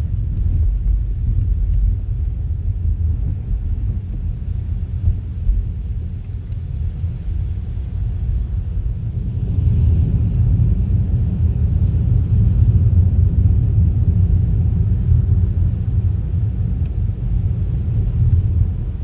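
Steady low rumble of a car driving on a city street, growing a little louder about halfway through.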